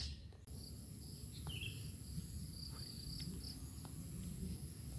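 Woodland ambience: a steady high-pitched insect drone that sets in about half a second in, with a few short bird chirps and a low rumble underneath.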